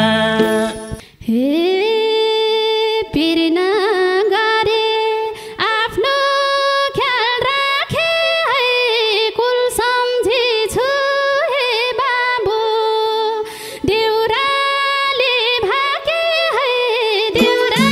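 A woman singing an unaccompanied solo line of a Nepali lok dohori song, with long held notes and ornamented slides. The backing band drops out about a second in and comes back in near the end.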